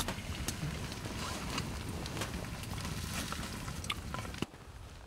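A low steady rumble with scattered crinkles and light clicks as hot water is poured from a cooking pot into a foil freeze-dried meal pouch. The sound drops away abruptly about four and a half seconds in.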